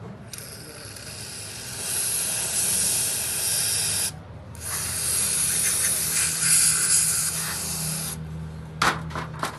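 A jet of air or spray hissing in two long bursts, with a short break between them, over a steady low hum; a few sharp clicks follow near the end.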